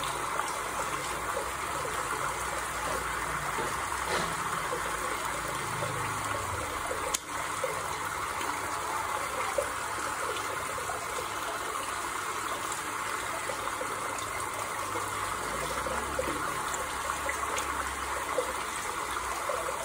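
Steady flow of running water, an even rush with no pauses, briefly interrupted by a click about seven seconds in.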